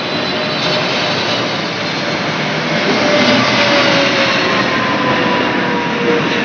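Boeing 777-300ER's twin GE90 turbofan engines on landing approach, passing low overhead: a loud, steady jet roar with a whine that slides slowly downward in pitch as the aircraft goes by, loudest about halfway through.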